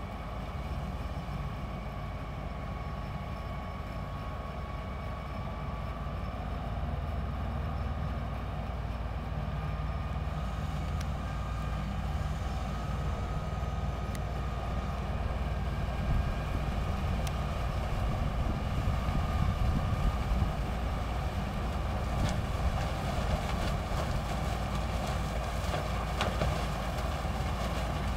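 Sugarcane harvester running as it cuts through standing cane: a steady engine drone with a steady whine above it, growing gradually louder as the machine comes closer, with scattered clicks in the second half.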